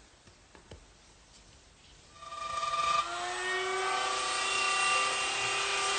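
An electric router motor starting up about two seconds in and running at a steady high-speed whine.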